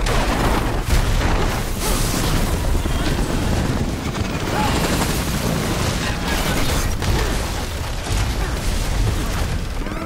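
Film sound of a helicopter crash-landing on snow: a continuous low rumble of engine and rotor broken by a series of heavy crashing impacts, the strongest about a second in.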